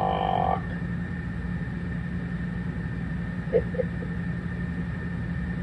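A man belches the word "Barack" in one short, loud belch lasting about half a second at the start. A steady low hum continues underneath.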